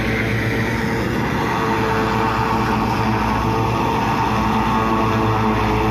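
Tractor engine running steadily at an even speed, a constant hum with no change in pitch.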